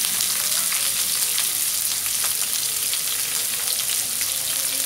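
Sliced red onions frying in an aluminium pan: a steady sizzle with scattered light crackles.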